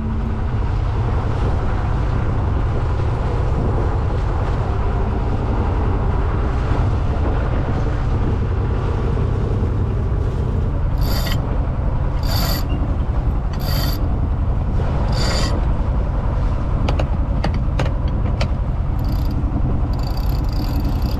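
Sailboat's inboard engine running steadily, heard as a loud low rumble throughout. Five short bursts of clicking come about halfway through, and a sail winch is cranked near the end.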